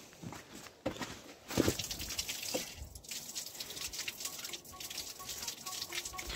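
Water running from a tap on a hose pipe into a plastic bucket, a steady splashing stream, with a few knocks in the first couple of seconds.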